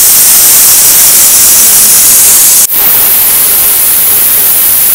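Pressure cooker whistle venting steam: a loud, steady hiss, broken for an instant about two and a half seconds in. The whistle is the sign that the cooker has come up to pressure.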